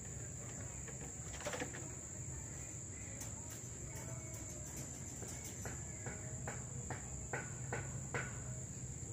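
Insects trilling in one steady high-pitched drone, with a low background hum. A handful of short clicks come in the second half.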